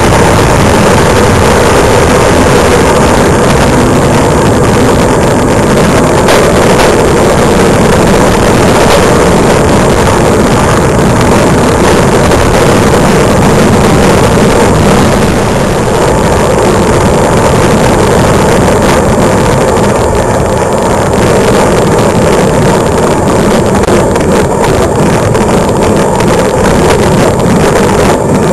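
Loud, steady wind buffeting on the microphone of a camera riding on a road bicycle at speed, mixed with tyre and road rumble.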